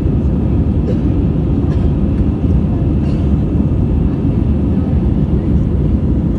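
Steady cabin noise of an Airbus A320 in flight: a deep, even drone of engine and airflow heard through the fuselage.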